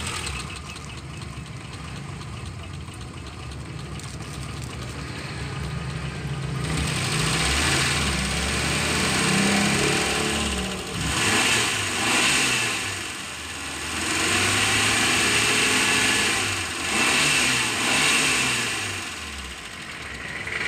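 Suzuki Carry Extra's 1.0-litre four-cylinder engine idling with its cover open, then revved up and down about four times from roughly seven seconds in. The seller presents it as a healthy engine with no rattle, its idle barely audible.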